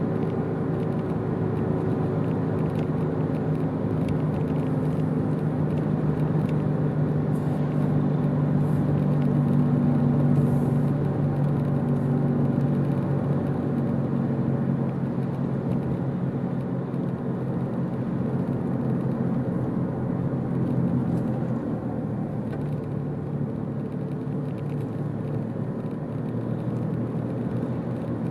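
A car driving along a paved road, with a steady engine hum and tyre noise. The hum grows a little louder about ten seconds in, then eases back.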